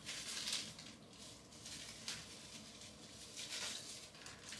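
A clear plastic bag crinkling softly in the hands as it is opened to take out a pair of sunglasses, in a few short faint rustles.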